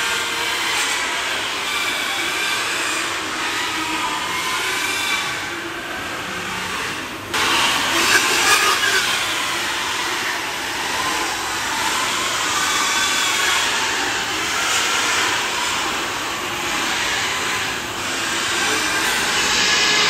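Many penned pigs squealing at once at feeding time, a loud, continuous din of overlapping high, wavering cries. It jumps abruptly louder about seven seconds in.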